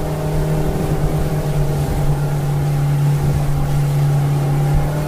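Small electric motor of a toy remote-control boat running at a steady pitch as the boat speeds over the water.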